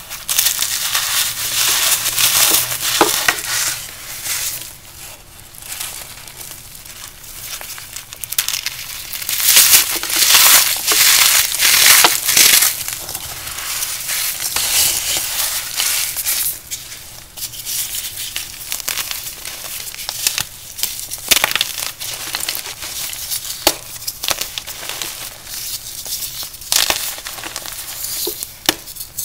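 Crumbly powder blocks being crushed and crumbled in a steady run of crunching and crackling, in uneven waves. The crunching is loudest about a third of the way in, with a few sharp single cracks later.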